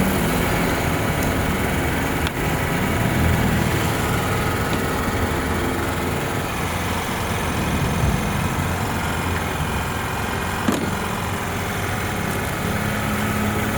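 Toyota RAV4 petrol engine idling steadily, with a sharp click about eleven seconds in.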